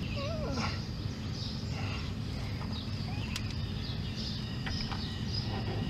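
Outdoor ambience: a steady low rumble with a few faint bird chirps, and light clicks as a brake rotor and wheel bearing are handled onto the spindle.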